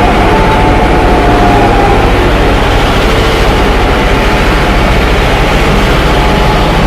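Train running steadily with a heavy, unbroken low rumble and a few faint higher tones drifting over it.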